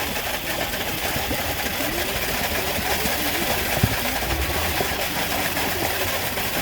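Concrete boom pump's engine running steadily, with a single sharp knock about four seconds in.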